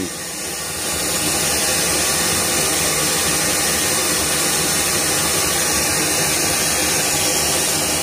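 Pink noise from the BSR 4000XR equalizer's built-in generator playing through loudspeakers: a steady full-range hiss across the whole 20 Hz to 20 kHz band. It swells a little about a second in, then holds level.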